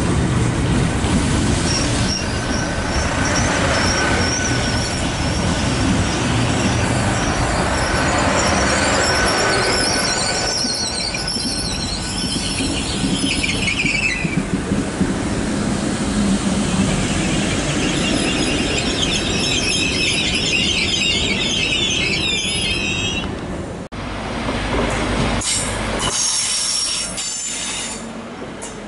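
Great Western Railway Hitachi Intercity Express Train running along the platform, a steady rumble of running gear with high wheel squeal coming and going. About 24 seconds in the sound cuts abruptly to a quieter passing Class 43 HST set.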